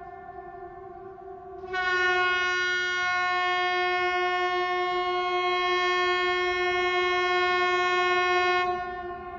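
Fan-made emergency alert alarm: a steady horn-like tone, joined about two seconds in by a louder, brighter horn-like tone that holds for about seven seconds and then cuts off, leaving the first tone.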